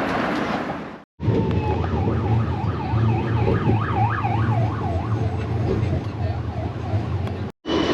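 Emergency vehicle siren in a fast yelp, its pitch sweeping up and down about three times a second, over a steady low traffic hum. The sound drops out abruptly about a second in and again near the end.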